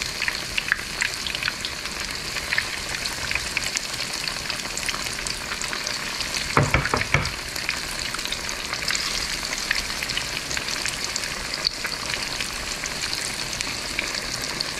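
Batter-coated striped bass pieces frying in hot oil: a steady sizzle with fine crackling. A brief louder knock comes about six and a half seconds in.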